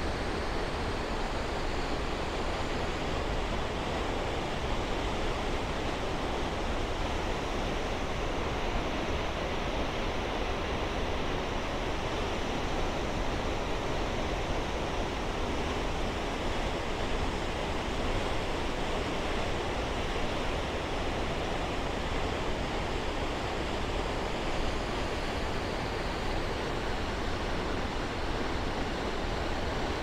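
Koosah Falls, a waterfall on the McKenzie River, giving a steady, unbroken rush of falling water.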